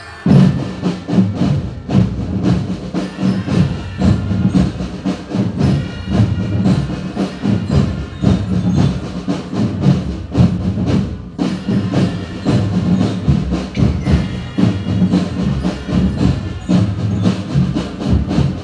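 Military marching drum band playing: massed snare drums and bass drums beating a fast, dense rhythm with a tune over it, striking up abruptly at the start.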